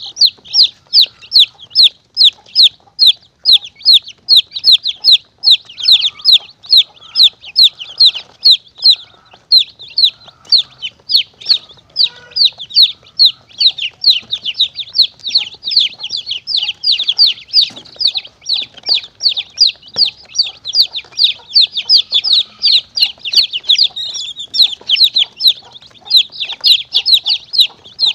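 Young chicks peeping: a steady run of short, high calls that fall in pitch, about three a second, crowding together more from about halfway through. This is a lure call for monitor lizards and mongooses.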